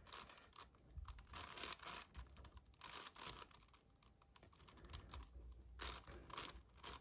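Faint bursts of rapid clicking from the layers of a magnetic 7x7 speed cube being turned by hand, in several short flurries of turns.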